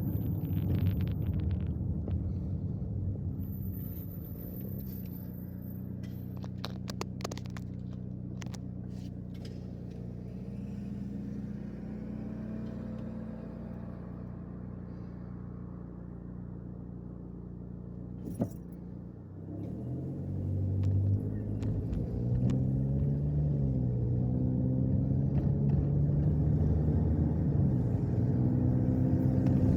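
Cabin sound of a 2010 Chevrolet Equinox on the road: engine and road noise ease off to a steady low hum for much of the time. A single sharp click comes just before the engine note rises again, climbing and stepping through gear changes as the car accelerates from about twenty seconds in.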